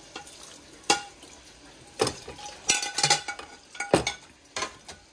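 Dishes and cutlery clinking and knocking together while being washed by hand in a sink: about half a dozen sharp clinks, some ringing briefly, over the steady hiss of the tap left running.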